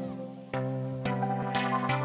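Background music: sustained chords over a regular beat about twice a second.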